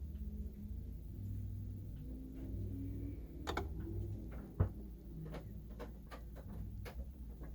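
Marantz TT240 turntable running under test: a low steady hum with scattered light clicks and one sharper knock about halfway through.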